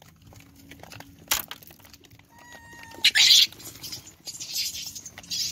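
Macaques calling: a short pitched call, then loud, harsh, high screeches about halfway through and again near the end, with a sharp click about a second in.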